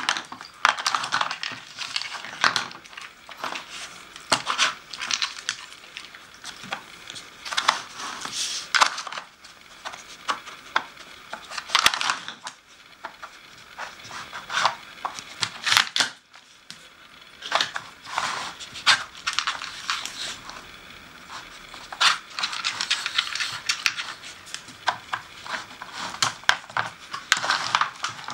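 Dog nosing and pawing at a plastic Nina Ottosson treat puzzle: plastic tiles and pegs clattering, knocking and sliding on the board in irregular bursts.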